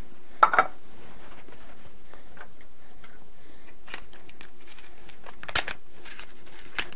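A few sharp clicks and light rustles as a knife cuts open the paper Microcrisp wrap on a glass pie plate, the clearest about half a second in and two more near the end. A steady faint hum and hiss runs underneath.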